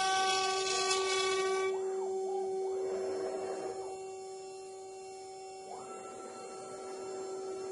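Steady high whine of an 800 W spindle motor on a two-head mini CNC router while its bit mills wood, with a rougher cutting noise over the first couple of seconds that then drops away. A second, higher tone comes in about three-quarters of the way through.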